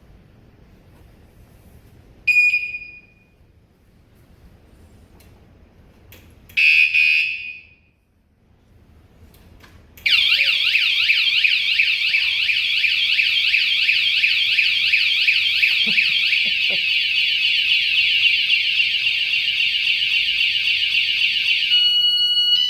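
Battery-powered motorcycle vibration alarm. It gives a short chirp about two seconds in and a longer chirp near seven seconds. About ten seconds in it starts a loud, rapidly warbling siren that runs for about twelve seconds, then breaks off into a few short beeps near the end.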